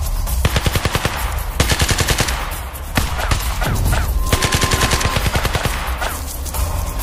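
Rapid bursts of automatic gunfire, many quick shots a second in several runs, over a steady low rumble.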